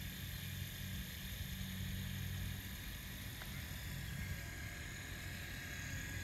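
Radio-controlled hydraulic excavator running as it swings and raises a loaded bucket: a steady low hum with a faint high whine above it, the hum easing about two and a half seconds in.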